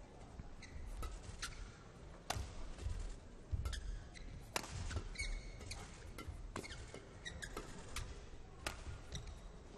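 Badminton rally: sharp racket strikes on the shuttlecock, roughly a second apart, with court shoes squeaking and feet thudding on the court floor.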